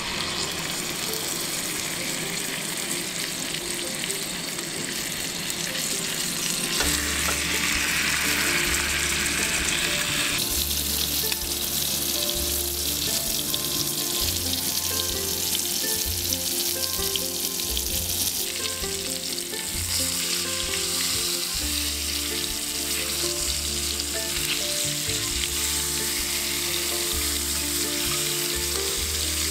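Steak searing in butter in a cast iron skillet on a propane camp stove: a steady sizzle.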